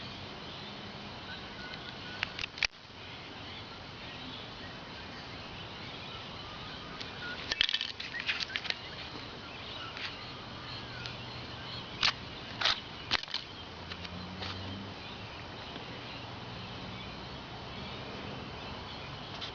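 Scattered sharp clicks and rustling handling noises over a steady hiss, in a few short clusters.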